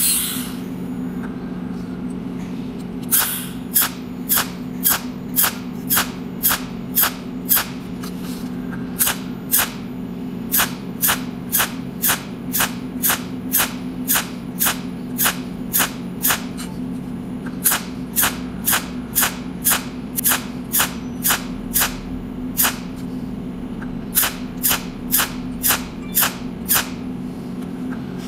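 Cold welding machine firing one short spot-weld arc pulse after another, each a sharp snap, at about two a second with a few brief pauses, over a steady low hum. The pulses lay a seam of overlapping spot welds.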